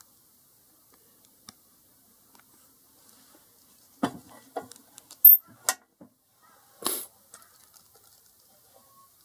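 Light knocks and clicks from handling the metal parts of a commercial vegetable cutter that is switched off, most of them in a cluster about four to seven seconds in, one of them a very short high-pitched tick.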